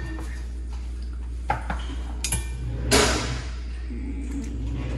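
Kitchenware clattering: a few sharp clinks and knocks of utensils against pots or dishes, the loudest about three seconds in, over a steady low hum.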